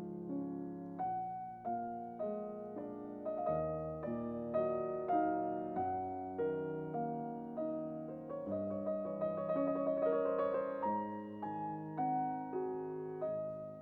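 Background piano music: a slow, gentle piece of struck notes and chords, one about every half second, with no other sound heard over it.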